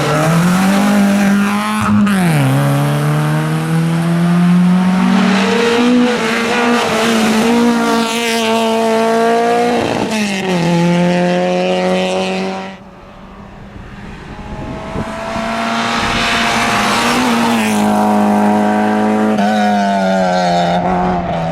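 Rally car engines at full throttle, pitch climbing and stepping down with each upshift. Just past halfway the sound drops away abruptly, then another car's engine builds up and holds a high, steady rev.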